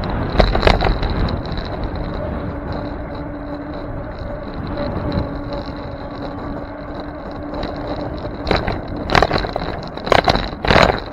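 Bicycle riding over city pavement, heard from a camera mounted on the bike: steady rushing road and wind noise. Short rattling knocks come as it rolls over bumps, once early and several times near the end. A steady hum sounds for a few seconds in the middle.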